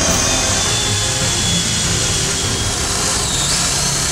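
18-volt cordless combi drill motor running under load, boring holes in wood, with a steady high whine, over background music.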